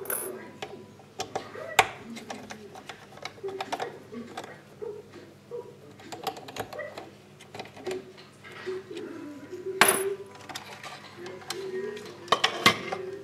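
Scattered clicks, taps and knocks of a screwdriver and the plastic and metal internal parts of an opened Krups XP7200/EA8000 espresso machine being worked loose and handled, with sharper knocks about two seconds in, near ten seconds, and twice near the end.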